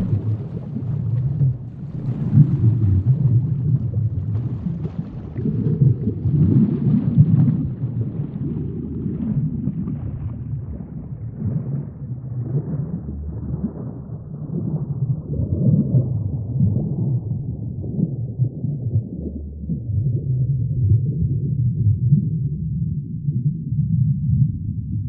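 A low, muffled rumble that swells and ebbs irregularly, with a faint crackle above it that thins out as it goes on.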